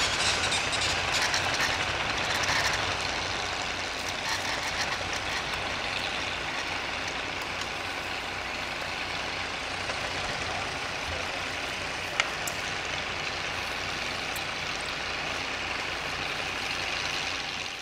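Steam donkey yarding engine working, a steady hiss of steam and machinery with some clatter in the first few seconds and a single sharp click about twelve seconds in.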